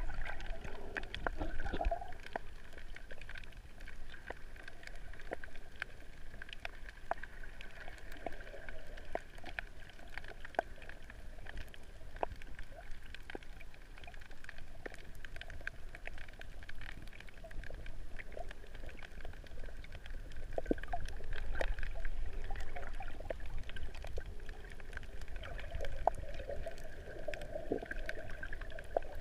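Underwater sound heard through a GoPro's waterproof housing: a muffled, steady water rumble with scattered sharp clicks and crackles throughout.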